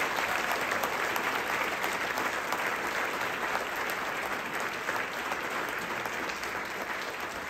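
Audience applauding, a dense round of clapping that eases off slightly near the end.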